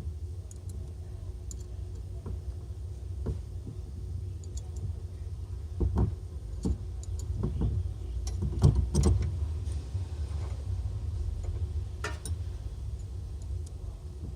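Scattered clicks and knocks of hand work on a car, the loudest bunched in the middle with one more near the end, over a steady low hum.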